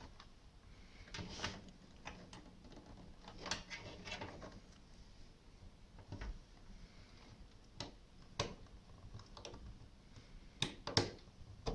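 Quiet, irregular plastic clicks and rustling as a cable and its small connector are handled inside a desktop computer case and pushed onto a motherboard pin header, with a few sharper clicks near the end.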